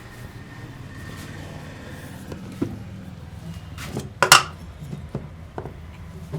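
Sharp clicks and snaps from a hands-on head and neck massage, a few scattered, with the loudest a quick cluster of snaps about four seconds in.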